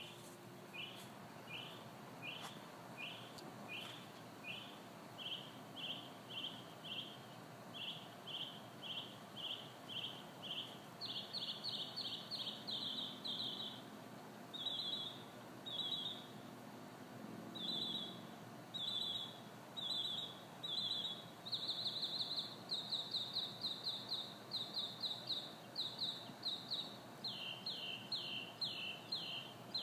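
A songbird singing a long series of repeated short whistled notes, about two a second at first, then from about a third of the way in faster rapid runs broken by short pauses.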